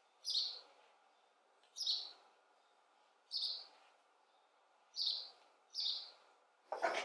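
A bird chirping: five short, high calls spaced about a second or a second and a half apart. A louder rushing noise begins right at the end.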